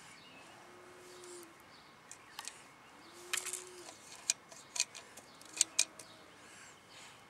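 Irregular sharp clicks and taps from a baby's hand knocking and fiddling with the metal tube and clamp knob of a parasol base, loudest in a cluster past the middle.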